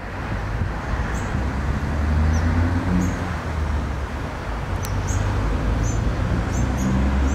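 Steady road traffic noise with a low rumble, and short high bird chirps several times.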